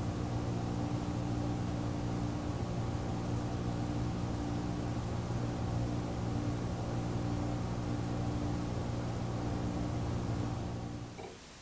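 A machine humming steadily with a faint slow pulse, fading out shortly before the end.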